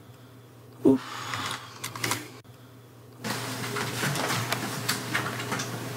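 A short vocal sound about a second in, then fast, irregular clicking and rustling from something being handled at an office desk, steady from about three seconds in.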